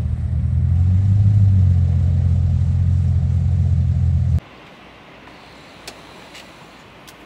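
A vehicle engine running with a steady low rumble, cutting off abruptly about four and a half seconds in, leaving a much quieter background with a few faint clicks.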